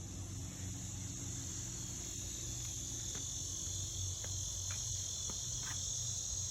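Steady high-pitched chorus of insects, like crickets, with a low steady hum underneath and a few faint taps.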